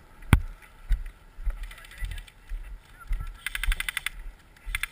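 Bursts of rapid airsoft gun fire, about fifteen shots a second, in two short bursts in the second half. A single sharp crack comes about a third of a second in, and irregular low thuds of movement and wind on the camera run underneath.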